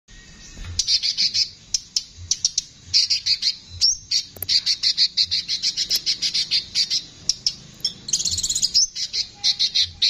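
Male sunbird singing a harsh, rapid song: runs of sharp, high chirps in quick stuttering series, breaking into a faster buzzy trill about eight seconds in.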